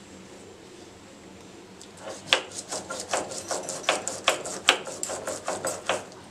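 Stone grinding roller scraped rapidly back and forth over a flat grinding slab, crushing a wet paste. The rasping strokes start about two seconds in and come about five a second, then stop near the end.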